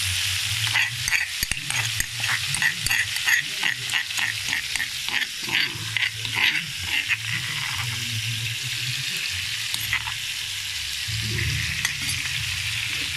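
Pounded chilli paste sizzling in hot oil in a metal wok, being sautéed until fragrant. For the first seven seconds or so a spatula scrapes and taps against the wok about three times a second, then the sizzle carries on steadily.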